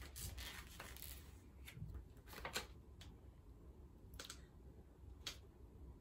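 Faint rustling of a paper instruction booklet being opened and its pages turned, with a few short crackles spread through.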